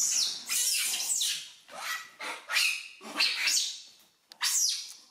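Young macaques screeching: a run of about six short, high-pitched calls that mostly fall in pitch, with brief gaps between them.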